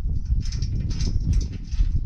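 Chrome headlight surround on a 2000 Toyota 4Runner being worked loose by hand, giving a run of small irregular clicks and scrapes over a heavy, uneven low rumble.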